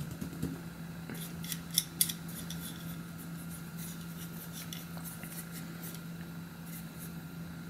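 Makeup brush bristles sweeping over a plastic model tank engine to clear dust and cobwebs: a run of small scratchy clicks, loudest about two seconds in.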